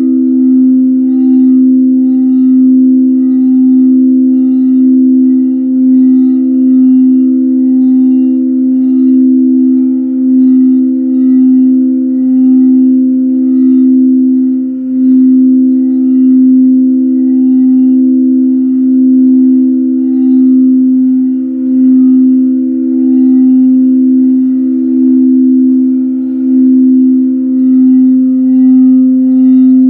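Tibetan singing bowl being circled around the rim, holding one steady low hum with a few higher overtones. The tone swells and fades in a slow, even pulse.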